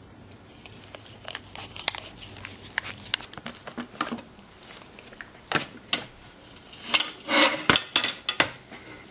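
Wood screws being driven by hand with a screwdriver into wooden blocks: a run of small clicks and creaks, with louder knocks and scrapes as the wood is handled in the second half.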